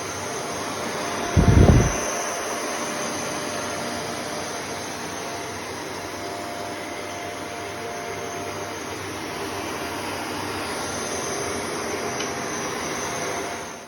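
Shark NZ801UKTSB corded upright vacuum cleaner running steadily, with a low thump about a second and a half in.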